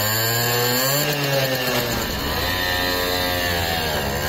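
Simson S51 Enduro moped's single-cylinder two-stroke engine revving. Its pitch climbs in the first second, drops back to a steadier run, and climbs again near the end as the bike pulls away.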